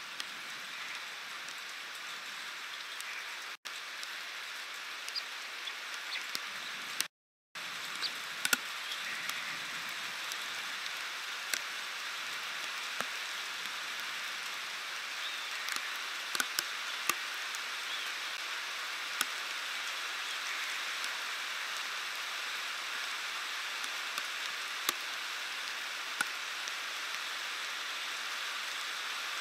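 Heavy rain pouring steadily on and around a rooftop stork-nest webcam, growing slightly louder, with scattered sharp ticks as drops strike the camera housing. The sound cuts out briefly twice in the first eight seconds.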